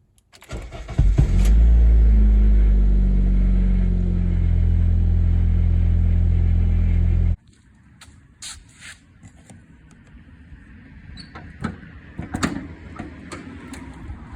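The 2007 Honda Civic's 1.8-litre four-cylinder engine starts, flares up briefly, then settles into a steady idle. About seven seconds in the sound cuts off abruptly, leaving a few light clicks and knocks.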